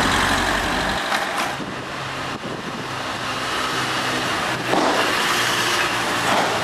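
Street traffic: a steady wash of car noise with engines running, swelling briefly as vehicles pass about five seconds in and again near the end.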